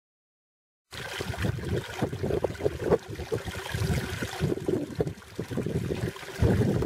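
Creek water trickling over rocks, with gusty wind rumbling on the microphone; it starts about a second in, after silence.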